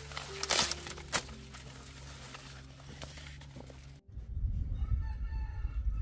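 Dry corn leaves and husks rustling as a hand works an ear of corn on the stalk, with two sharp snaps or cracks about half a second and a second in as the ear is broken off. About four seconds in the sound changes abruptly to a low rumble with a few short pitched calls.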